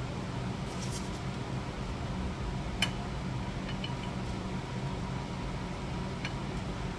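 Steady mechanical hum in a workshop, with a few light clicks, the sharpest about three seconds in.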